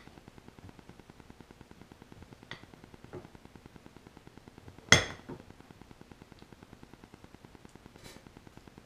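Fork clinking against a dinner plate: two light taps a little after two seconds in, then one sharp, ringing clink about five seconds in.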